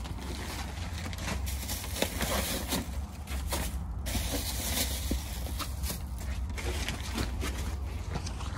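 Footsteps on a brick floor and the rustling and handling of an insulated delivery bag being opened, a run of short clicks and scrapes over a steady low rumble.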